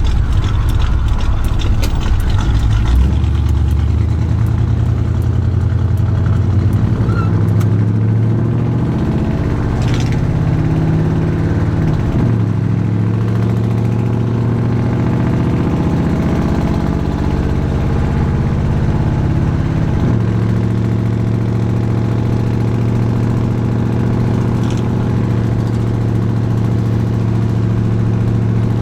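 Squarebody GMC truck engine with an oversized camshaft, heard from the cab, accelerating away from a stop and pulling through the gears. The pitch drops and climbs again twice, near the middle and about two-thirds through, as the transmission shifts. It pulls smoothly from idle now that the timing has been reset.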